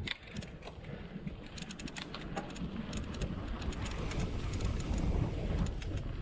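Mountain bike rolling quickly over a gravel forest track: tyre rumble and wind on the microphone, with many sharp clicks and rattles from the bike and the stones. The rumble grows louder as the bike picks up speed.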